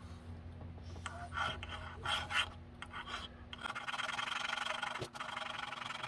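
Hand file rasping on the grinder: a few irregular scraping strokes at first, then from about four seconds in a steady, fast rasp.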